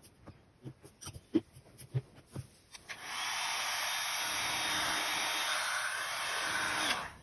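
Heat gun switched on about three seconds in, blowing steadily for about four seconds and then cut off, worked over freshly poured epoxy resin to pop surface bubbles. Before it come a few light knocks and clicks of handling.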